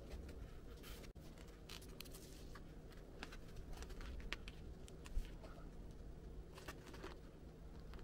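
Faint rustling, scraping and small clicks of hands working with vinyl sticker sheet and tape, with one sharper tap about five seconds in, over a low steady hum.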